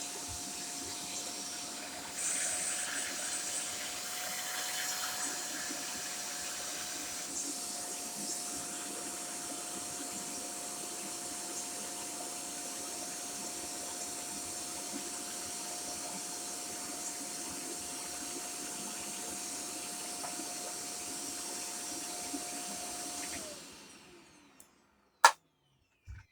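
Shark corded upright vacuum cleaner running with a steady whine and hiss, louder for a few seconds early on. Near the end it is switched off: the whine falls in pitch as the motor spins down and dies away. A sharp click follows.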